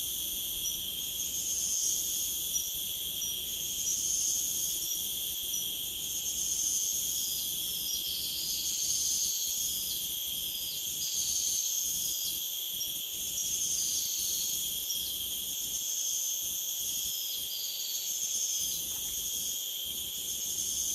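A chorus of insects such as crickets or cicadas, shrilling steadily at several high pitches, with one strand swelling and fading about every two seconds.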